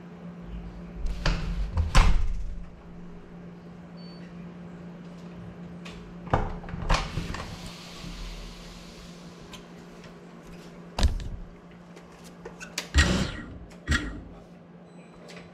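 A steady low hum with several sharp knocks and thumps over it: a cluster about two seconds in, the loudest, another pair near seven seconds, and more around eleven and thirteen to fourteen seconds.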